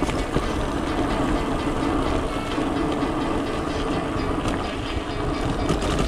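Mountain bike rattling and clattering over a rough, stony trail, heard through a handlebar-mounted camera, with steady wind and tyre rumble.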